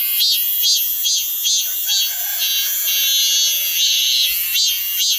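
A cicada singing: a loud, high, buzzing call in rhythmic pulses of about three a second, which runs into a steadier buzz in the middle before the pulses return.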